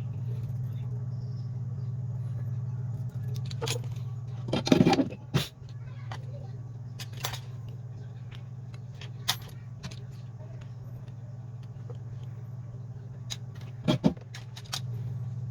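Small hard parts and tools clicking and clattering while a smartphone is taken apart, with a louder clatter about five seconds in and another near fourteen seconds, over a steady low hum.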